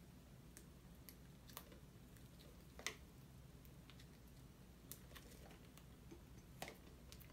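Faint, scattered clicks and taps of hands handling a Blu-ray steelbook case and its plastic packaging, the sharpest click about three seconds in, with a low steady room hum underneath.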